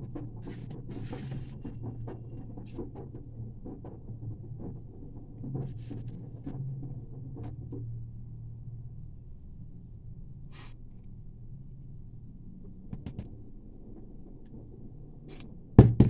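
Faint rustling and small ticks of hands handling potting soil and succulent leaves in a plastic pot, over a steady low hum, with one sharp knock near the end.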